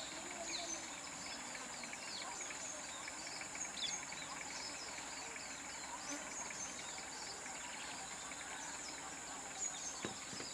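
Forest ambience: a steady high insect buzz, with birds chirping in short falling notes a few times.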